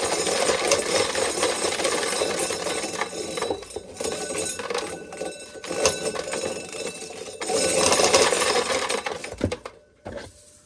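Corn sheller working ears of corn, a dense mechanical clatter with kernels rattling through it. It eases off briefly, picks up again, then stops about a second before the end.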